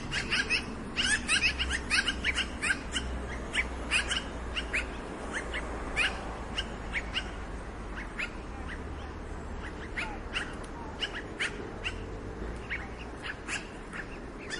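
Black-billed magpie calling: a rapid run of short notes for the first few seconds, then spaced single calls.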